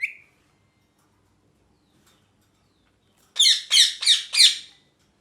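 Ringneck parrot giving a short chirp, then, about three and a half seconds in, four loud harsh screeches in quick succession.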